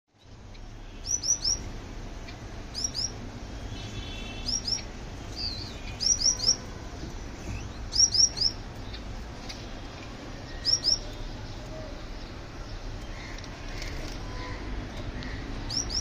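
Small caged finches calling: short, high chirps in quick clusters of two or three, repeated every second or two over a low steady background rumble.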